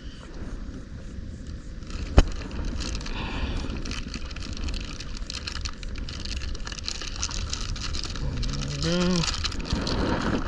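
Handling noise aboard a kayak: a sharp knock about two seconds in, then steady crackling and rustling, with a short rising hum from a person near the end.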